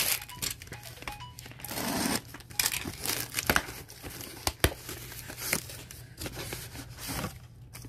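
A taped cardboard shipping carton being opened by hand: packing tape tearing and cardboard flaps rustling as they are pulled apart, with a couple of sharp clicks midway.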